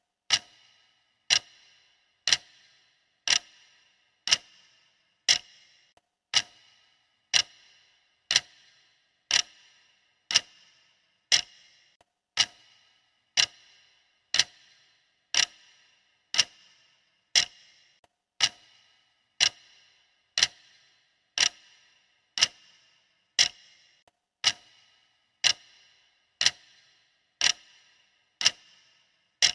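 Clock-style ticking of a countdown timer, one sharp tick a second, each with a short ringing decay.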